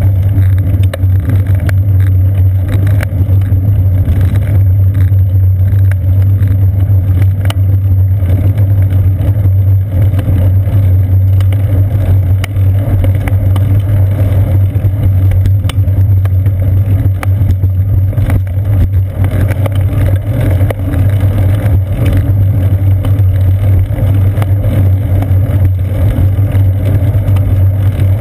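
Riding noise from a bicycle, picked up by a seat-post-mounted GoPro Hero 2 in its housing: a loud, steady low drone and rumble as the bike rolls along pavement, muffled in the highs, with small knocks from bumps and joints in the path.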